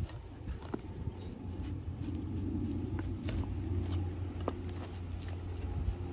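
A steel planting bar worked into dry, loose soil and dead grass, giving scattered faint crunches and ticks over a steady low rumble.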